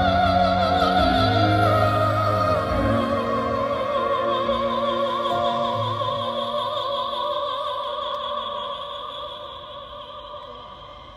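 A singer's high, wordless vocalise held with strong vibrato over sustained orchestral accompaniment, slowly fading away toward the end.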